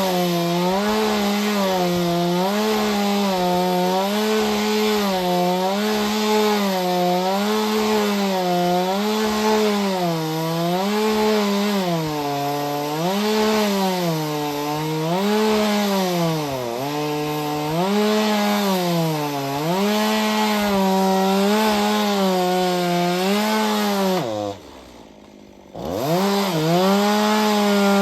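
Two-stroke chainsaw on a chainsaw mill running at full throttle while ripping through a log. Its high engine whine sags and recovers every second or two as the bar is pushed through the wood. About three-quarters of the way through it drops briefly to idle, then revs back up and carries on cutting.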